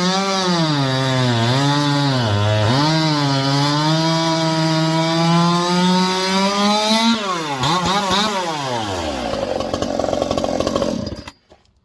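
Chinese-made two-stroke chainsaw cutting wood at high revs, its pitch dipping as the chain bogs under load and recovering, then held high. About seven seconds in the throttle is let off and the revs fall away after a brief blip, and the sound cuts off suddenly just before the end.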